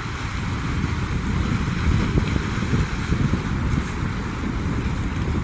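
Wind buffeting the microphone in a flickering low rumble, over a steady hiss of choppy open water.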